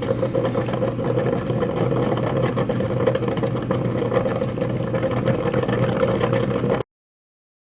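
Kitchen Selectives single-cup drip coffee maker brewing: a steady hiss and hum of water heating and percolating through the machine. It cuts off suddenly near the end.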